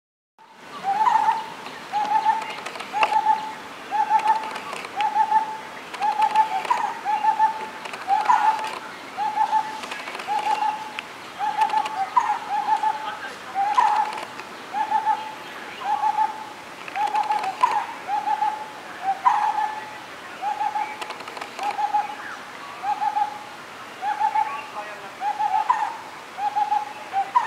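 Lineated barbet calling: a long, steady series of short notes on one pitch, about three every two seconds, with faint higher chirps in the background.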